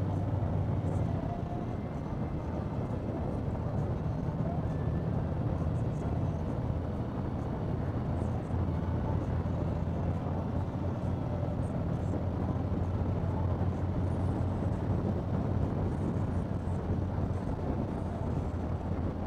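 Harley-Davidson V-twin motorcycles cruising at highway speed: a steady low engine drone under constant wind and road noise at the bike-mounted microphone.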